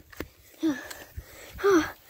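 A child breathing hard while running, with two short voiced gasps, the second one breathier, and a few light footstep taps in between.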